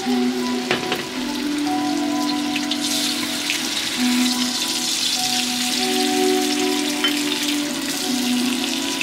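Hot oil sizzling in a wok as eggs fry in it, a steady sizzle with fine crackles and a sharp knock about a second in, over background music with held notes.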